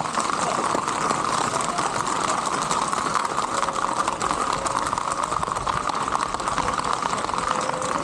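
Horse's hooves on asphalt, a fast, continuous patter of hoofbeats as a ridden horse moves along the road.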